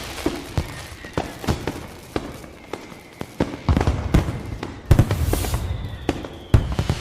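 Fireworks going off: a rapid, irregular run of bangs and pops with a hissing burst about five seconds in, and faint whistles that slowly fall in pitch.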